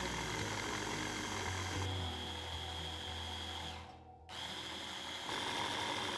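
Hand blender with a chopper bowl attachment running, pureeing soft fried zucchini and cheese into a dip; the motor gives a steady whine, cuts out briefly about four seconds in, then starts again.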